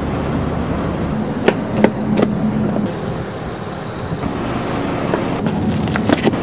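Outdoor parking-lot ambience: a steady haze of passing traffic. Several sharp knocks or clicks come through it, three close together in the first seconds and a few more near the end.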